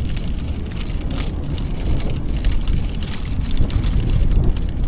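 Wind rumbling on the microphone while riding a bicycle, with light rattling clicks from the bike throughout.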